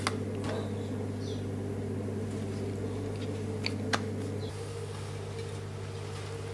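Steady low mechanical hum with a few faint clicks; the hum drops a little in level about four and a half seconds in.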